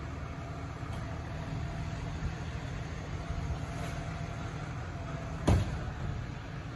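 2024 New Way Sidewinder automated side-loader garbage truck running steadily at idle, with one sharp bang about five and a half seconds in.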